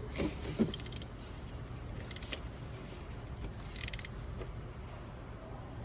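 Ratchet wrench clicking in three short bursts while tightening the small 10 mm bolt that holds a camshaft position sensor.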